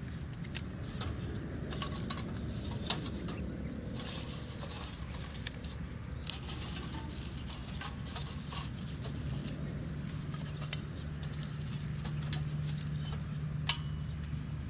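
Scattered light clicks and taps over a low steady rumble, with one sharper click near the end.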